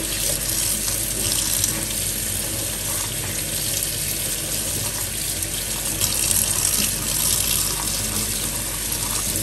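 Kitchen tap running steadily into a stainless steel sink, the stream splashing over dried sorghum leaves as they are rinsed and rubbed by hand.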